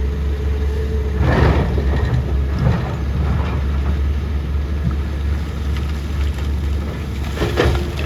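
Tata Hitachi excavator's diesel engine running with a steady deep rumble, with a louder clatter about a second in and another near the end.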